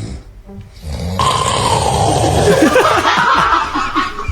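A person snoring very loudly: a rapid, rattling flutter that sounds like a helicopter passing. It starts about a second in.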